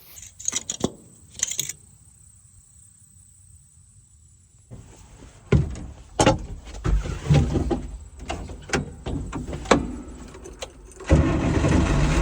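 A few sharp clicks and knocks, then irregular clunks and low rumbling. About eleven seconds in, the International Harvester 1086 tractor's six-cylinder diesel engine starts abruptly and keeps running steadily.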